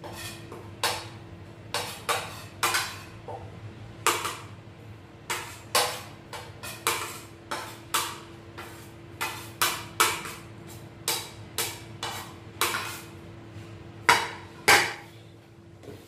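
A metal utensil clinking and scraping against ceramic plates and a bowl as chopped herbs, tomato and pineapple are pushed off the plates into a mixing bowl: irregular sharp clinks about once or twice a second, with two louder knocks near the end, over a faint steady hum.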